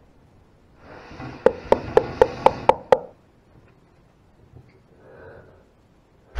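Rapid knocking on a door, about seven sharp knocks in a quick even run of roughly four a second, heard in a small tiled room.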